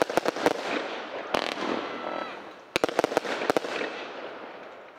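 Sky Crafter 'Raging Inferno' firework cake firing: groups of sharp bangs from bursting shells at the start, once about a second in and again around three seconds, each trailed by crackling. The sound fades away near the end as the last stars burn out.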